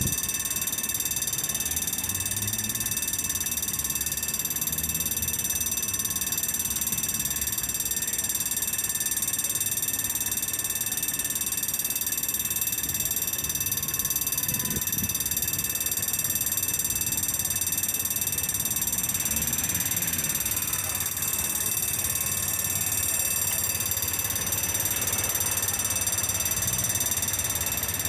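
Railroad level-crossing warning bell ringing steadily while the barriers are down, with a low traffic rumble underneath.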